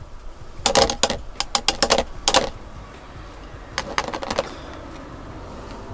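Quick runs of light clicking and tapping, plastic on plastic, as ground coffee is scooped and poured through a funnel into an Aeropress chamber. There is a longer burst of taps early on and a shorter one about four seconds in.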